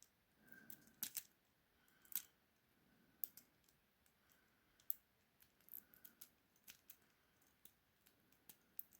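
Faint, scattered clicks and ticks of a miniature half-diamond lock pick and tensioner working the pins of a tiny 20 mm padlock, a few sharper clicks standing out about one and two seconds in.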